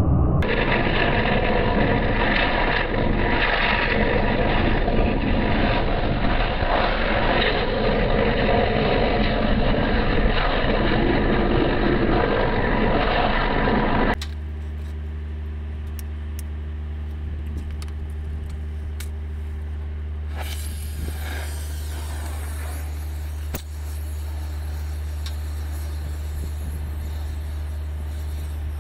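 Thermal lance burning into a steel shaft: a loud, steady hiss of oxygen and burning metal that cuts off abruptly about halfway through. A quieter, steady low hum with occasional faint clicks follows.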